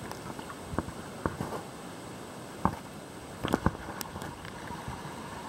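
A few sharp, light knocks and clicks scattered over a faint steady hiss, two of them close together about three and a half seconds in.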